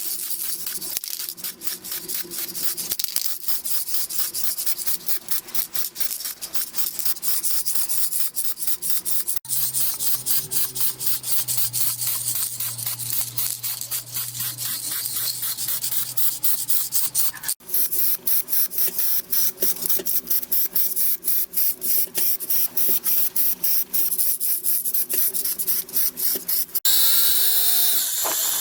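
Abrasive rubbing, like sanding or polishing, in quick repeated strokes of about three a second, over a steady low hum. The sound changes abruptly a few times.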